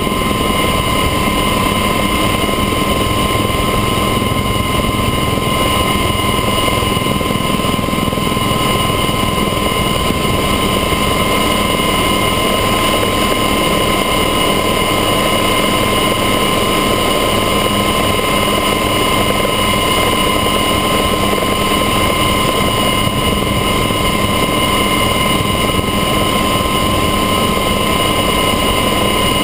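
Helicopter in flight heard from a camera mounted on its exterior: a loud, steady engine-and-rotor drone with a constant high whine over a rushing noise.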